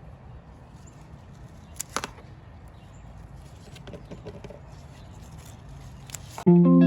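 A low outdoor rumble with a few sharp clicks and rustles as lettuce leaves are cut for harvest. Guitar music starts abruptly near the end.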